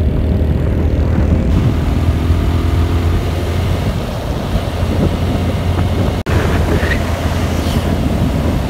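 Motorcycle riding at highway speed: a steady engine hum under heavy wind rumble on the microphone. The sound cuts out for an instant about six seconds in.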